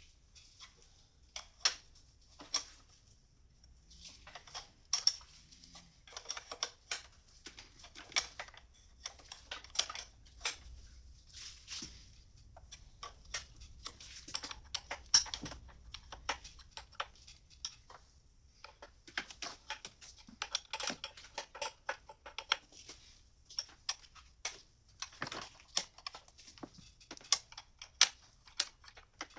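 Irregular light metallic clicks and clinks of a hand wrench tightening fittings on the injectors of a BMW M57 diesel engine, some in quick runs.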